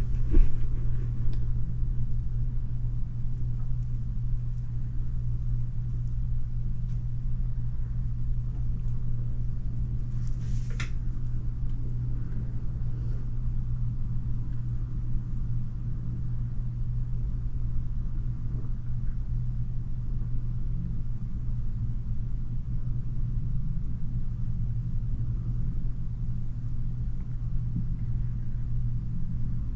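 Steady low mechanical hum of a motor or fan running, with a knock at the start and a short high-pitched sound about eleven seconds in.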